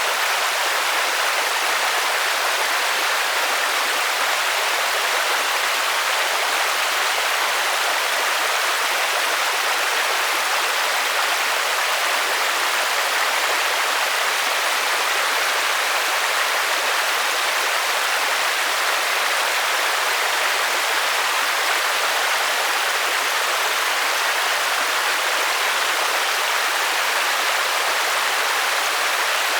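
Rain falling steadily, an even, unbroken hiss with no separate drops or changes standing out.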